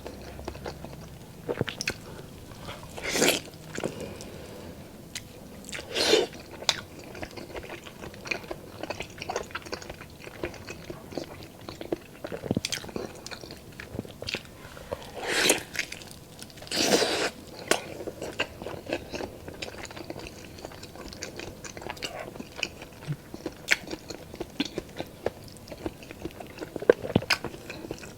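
Close-miked eating sounds: a person chewing and biting into spicy pork adobo and rice, with wet smacking and clicks and a few louder bites or slurps.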